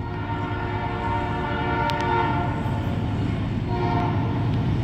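Freight train horn from an approaching ex-Conrail GE Dash 8 diesel locomotive: one long blast, a short break, then a second blast starting near the end. Under the horn, the train's rumble grows steadily louder as it nears.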